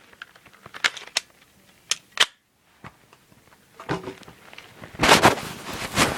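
Sharp mechanical clicks and clacks from a spring airsoft pistol, a UHC M9 Beretta replica, with the two strongest about two seconds in, followed by a short stretch of rustling handling noise a little after five seconds.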